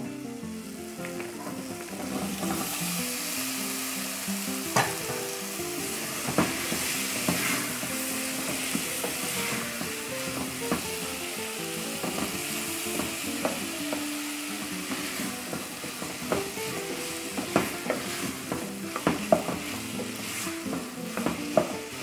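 Sliced maxixe sizzling as it fries with tomato and peppers in an aluminium pot, the hiss swelling about two seconds in once the vegetables hit the hot pan. A wooden spoon stirs the mixture, knocking against the pot, more often near the end.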